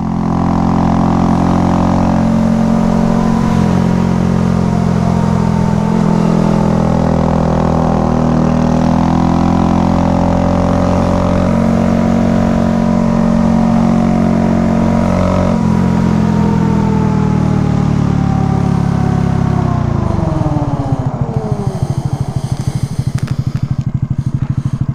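Honda Grom's single-cylinder 125 cc four-stroke engine running at a steady cruising speed, its pitch drifting a little. About twenty seconds in the revs drop and it settles into a slow, even chugging at low rpm.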